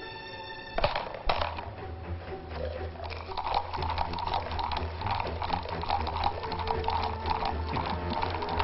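Two sharp knocks about a second in, then a rapid mechanical clicking and whirring, like a machine set running, that builds up and runs on over a low hum and background music.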